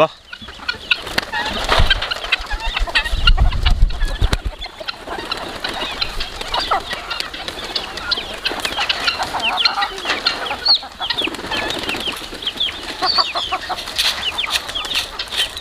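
A flock of farmyard chickens clucking and calling in many short overlapping calls as they gather at scattered feed grain, with some wing flapping. A low rumble runs between about two and four seconds in.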